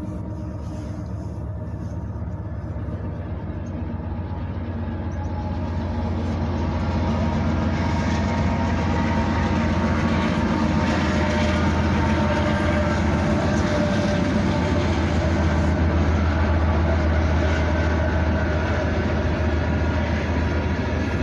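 A train running, growing louder over the first several seconds and then holding steady, with a deep low drone and a mix of steady tones above it.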